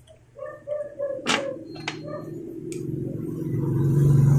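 A few sharp clicks from handling test-lead clips on a capacitor's leads, among some short faint tones. From about three seconds in, a low steady engine-like hum grows louder and is the loudest sound at the end.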